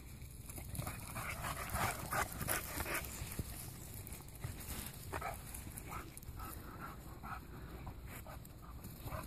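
Several Continental Bulldogs panting and snuffling in short, irregular puffs as they play and sniff at each other, heaviest in the first few seconds.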